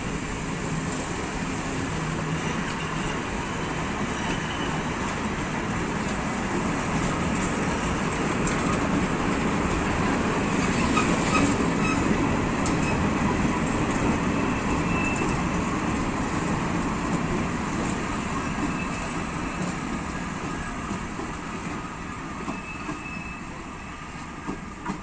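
Old passenger coaches and four-wheel goods wagons rolling past on the adjacent track, their wheels clattering over the rails with sharp clicks now and then. The noise is loudest about halfway through, then fades as the end of the train draws away.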